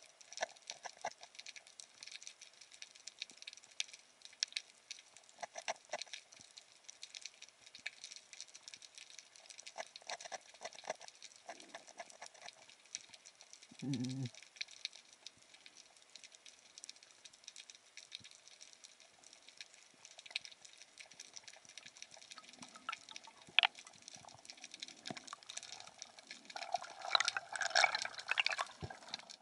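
Water sounds as picked up underwater: a steady crackle of many faint clicks, with a short low burst about fourteen seconds in and denser crackling near the end.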